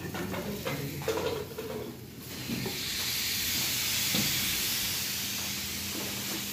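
Marinated chicken leg sizzling on a ridged grill pan, with a few clinks of metal tongs against the pan in the first two seconds. From about two seconds in, the sizzle becomes a steady, louder hiss.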